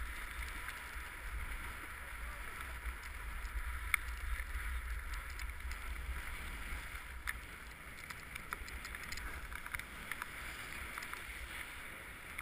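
Snowboard sliding over packed snow: a steady scraping hiss with a few sharp scrapes of the edge, about 4 and 7 seconds in. Wind rumbles on the microphone underneath.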